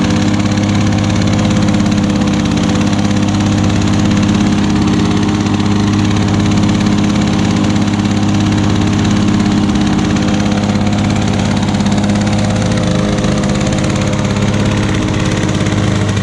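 Lawn-Boy walk-behind lawnmower engine running steadily at a constant speed, with no change in pitch; it runs smoothly despite burning a lot of oil smoke.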